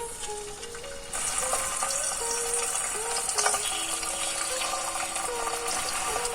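Food sizzling in a frying pan: a steady hiss with scattered crackles that starts abruptly about a second in. Background music with a plucked melody plays over it.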